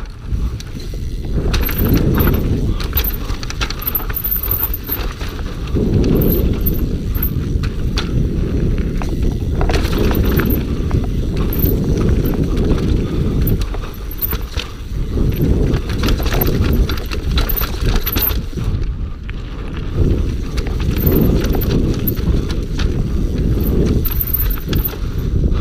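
Scott Gambler downhill mountain bike rattling and clattering non-stop as it is ridden fast over roots and stones, many sharp knocks over a dense low rumble.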